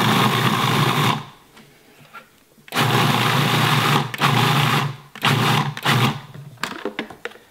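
Food processor pulsing, its blade chopping fermented vegetables: one run of about a second and a half, a pause, then a few shorter pulses.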